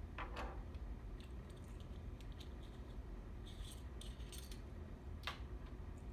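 Light clicks and clinks of a model airplane's small propeller hardware (spinner, prop nut, washer and collet) being handled and separated by hand. A brief scrape near the start, a cluster of small ticks around the middle, and one sharper click near the end.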